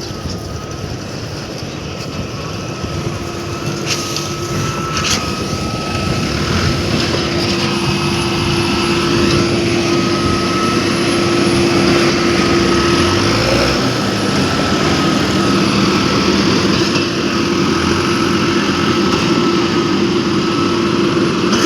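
Engine of a truck-mounted concrete boom pump running steadily while pumping concrete for a road slab, a constant mechanical hum that grows louder over the first several seconds. Two sharp clicks about four and five seconds in.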